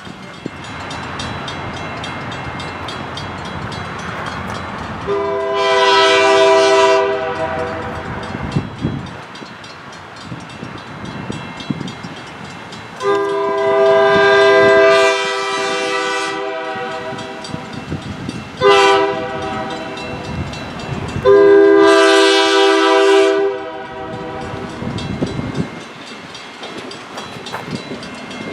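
Nathan K3L air horn on an SRY GP9u diesel locomotive sounding the grade-crossing signal, long, long, short, long, over the steady rumble of the train passing.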